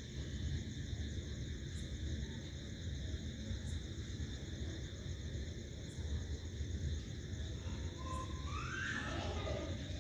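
Onions, green chillies, garlic and curry leaves frying in oil in a kadai as they are stirred with a spatula: a steady low rumble with a faint hiss. A brief rising tone comes near the end.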